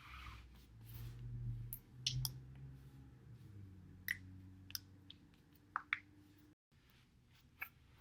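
A person's spine cracking while they roll their back over a foam roller: a scatter of sharp single pops, about seven in all, with a low rumble of body and roller moving in the first two seconds or so.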